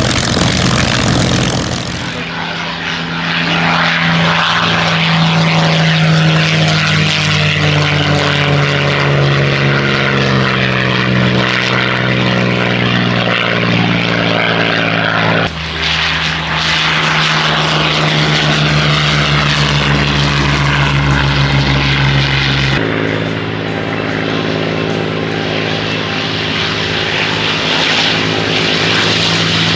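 Rolls-Royce Merlin V12 piston engines of Second World War fighters running steadily, with a Spitfire Mk IX flying overhead and a P-51D Mustang on the runway. The drone drifts slightly in pitch and changes character abruptly twice, at about 15 seconds and 23 seconds, where separate clips are joined.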